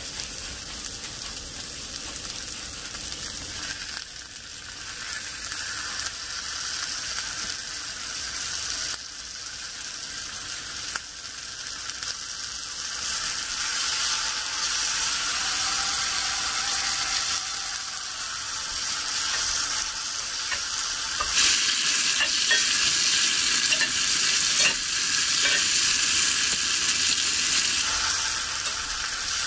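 Sliced green onions and then spicy-marinated octopus sizzling and frying in a cast-iron skillet, stirred with a fork. The sizzle grows louder partway through and is loudest for several seconds near the end.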